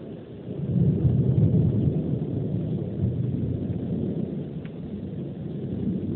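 Thunder rumbling low, swelling about half a second in and rolling on for several seconds.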